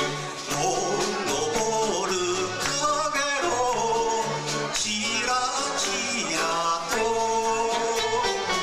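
A man singing a Japanese popular song over a live band's accompaniment, with electric guitar and a stepping bass line.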